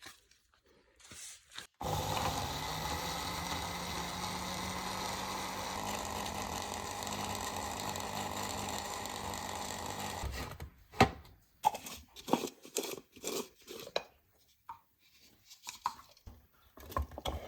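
Electric blender running steadily for about eight seconds, starting and stopping abruptly, as it purées the green sauce. A few sharp knocks and clatters follow after it stops.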